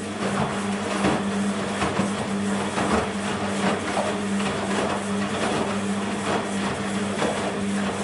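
BEKO WMB 51441 front-loading washing machine in its wash phase: water and wet laundry slosh and splash in the turning drum, with a splash about every two-thirds of a second over a steady hum.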